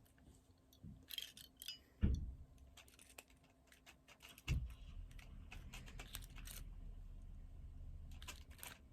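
Rubik's cube being twisted by hand: quick irregular runs of small plastic clicks as the layers turn. Two low thumps about two and four and a half seconds in.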